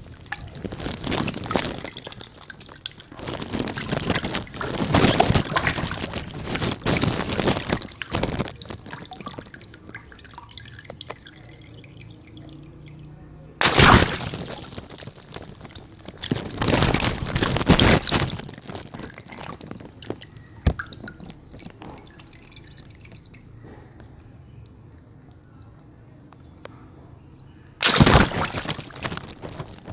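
Water balloons bursting, each sharp pop followed by water pouring and splashing out. Clusters of bursts in the first few seconds, then a single loud pop about halfway through and another near the end.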